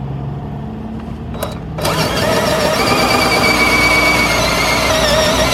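Power drill running a 1-3/4 inch hole saw into the plastic wall of an RV black holding tank. It runs quieter for about two seconds, then gets louder with a steady whine as the saw bites into the tank.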